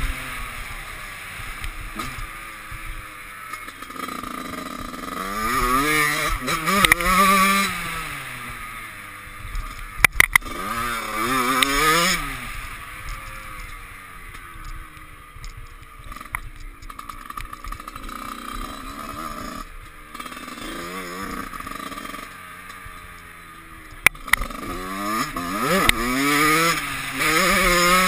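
Dirt bike engine revving hard and easing off in repeated rising and falling sweeps as the rider accelerates and shifts along a motocross track, over steady wind noise on the helmet-mounted microphone. A few sharp knocks come about ten seconds in and again near twenty-four seconds.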